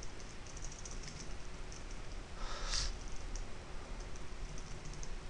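Typing on a computer keyboard: a scatter of light key clicks while a terminal command is entered. A short breath-like rush of noise comes about halfway through.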